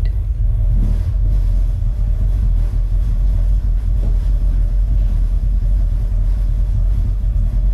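Deep, steady bass rumble from a film's opening soundtrack, played loud through a Klipsch R10SW subwoofer refitted with a Martin Logan Dynamo 700W driver and picked up by a microphone in the room.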